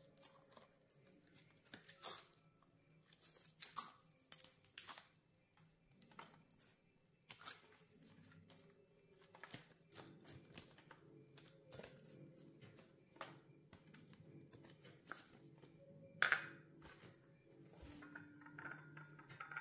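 Scattered light clicks and taps of small objects being handled, with one louder rustling burst about 16 seconds in.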